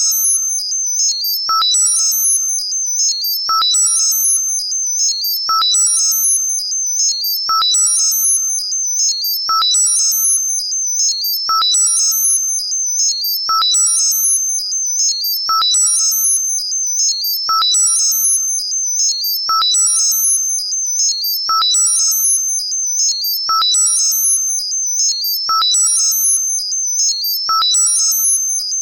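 Synthesized tinnitus-masking sound: a steady high-pitched tone with quick, warbling patterns of higher tones, and a short lower ping about every two seconds, repeating evenly.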